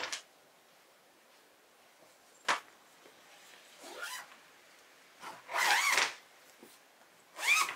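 Fabric storage bag being closed: a sharp click, then a few scratchy swishes of its lid folding shut and its zipper being pulled along the edge, the loudest just after the middle.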